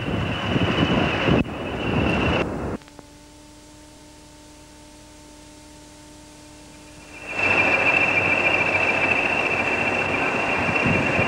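Pair of Class 20 diesel locomotives running, a loud noise with a steady high whine. It cuts off about three seconds in to a much quieter steady hum, and comes back loud with the whine about seven seconds in.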